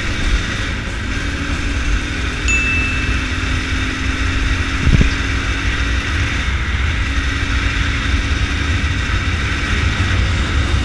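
Motorcycle engine running at a steady cruise under heavy wind rumble on the microphone while riding. A short high beep sounds about two and a half seconds in.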